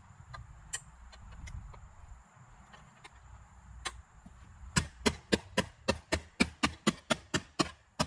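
Hammer blows on a bent metal deflector from a lawn mower deck, laid across a wooden beam, straightening it. A few scattered light taps, then from about five seconds in a fast, even run of sharp strikes, about four a second.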